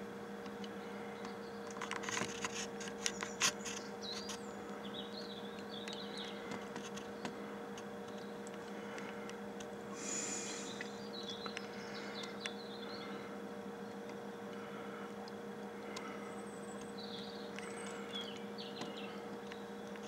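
Faint chirps of small garden birds come and go several times over a steady low hum, with a cluster of sharp clicks and knocks about two to three and a half seconds in.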